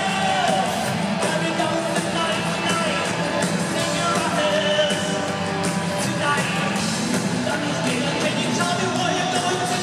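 Live rock band playing with a male lead vocalist singing into a microphone, heard from the audience of an arena concert.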